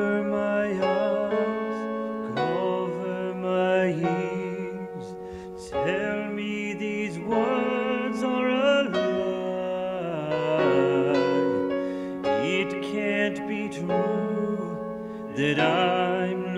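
Male opera singer singing with vibrato over a sustained keyboard accompaniment, in long held phrases with short breaks between them.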